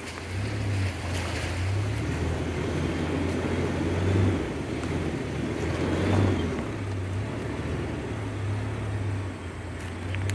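2019 Ford Ranger pickup's 2.3-litre turbo four-cylinder engine running at low speed as the truck drives over sand and mud: a steady low drone that swells and eases, with tyre noise underneath.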